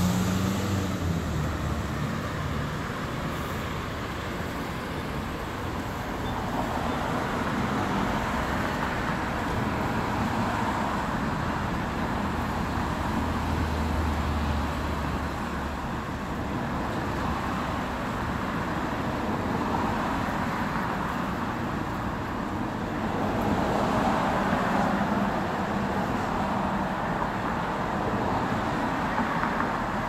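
City street traffic noise: a steady road hum that swells several times as cars pass, with a low engine rumble about halfway through.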